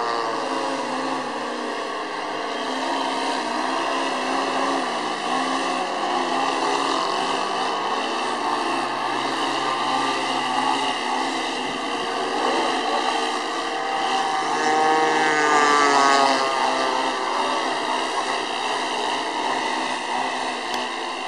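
Engines of several RC model aeroplanes buzzing overhead, their pitch rising and falling as the throttles are worked. Near the end, one engine climbs to a higher whine and is loudest for a moment.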